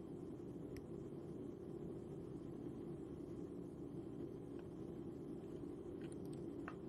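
Faint steady low hum of background room tone, with a few faint, sharp clicks scattered through it.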